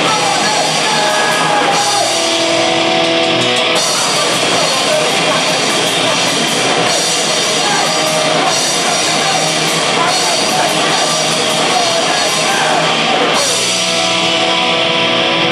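Live rock band playing loudly: electric guitars and a drum kit.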